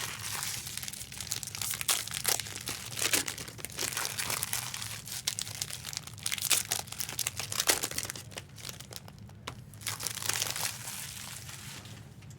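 Foil trading-card pack wrappers crinkling and tearing as packs are opened, in a run of irregular crackles that thin out near the end.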